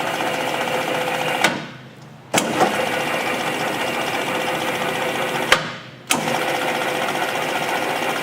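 Peddinghaus Perfeckt 32 CAB CNC rebar bender's drive running in pedal-controlled bursts: a steady mechanical whine that stops about a second and a half in, starts again with a click a second later, stops again past the middle and restarts with another click.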